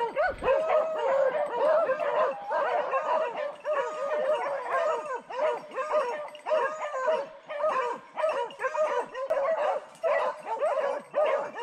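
A pack of beagles baying without a break, many short rising-and-falling cries overlapping: the hounds are holding a wild boar at bay.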